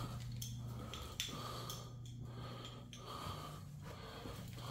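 A person breathing in a regular rhythm close to the microphone, with a steady low hum underneath.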